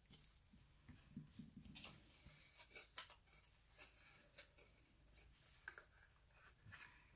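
Faint handling sounds of cardstock being glued and folded into a box: light rustles and small taps, with one sharper tap about three seconds in.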